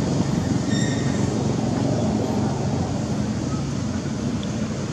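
Steady low rumbling noise, with a brief high chirp about a second in.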